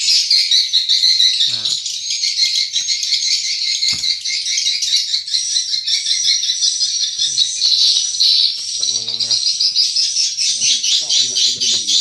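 Swiftlets twittering densely and without a break, a continuous stream of rapid high chirps filling the swiftlet house. A single short click sounds about four seconds in.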